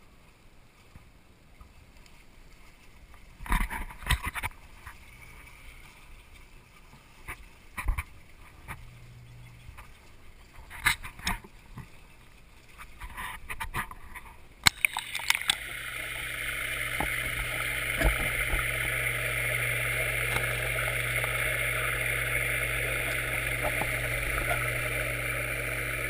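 Knocks and bumps of a handled waterproof camera housing. About halfway through, the camera goes under the water and the sound changes abruptly to a steady rush of water with a low hum, typical of a floating oyster upweller's pump drawing water through the seed silos.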